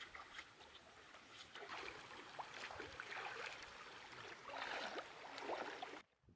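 Shallow stream water splashing and sloshing as hands work in it, with small scattered clicks, louder in the second half and cutting off shortly before the end.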